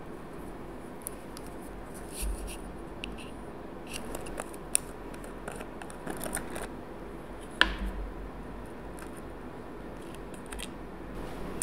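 A small plastic screw-top jar is handled and its black lid twisted off. Light clicks and scrapes are scattered through, with sharp clicks about four and three-quarter and seven and a half seconds in.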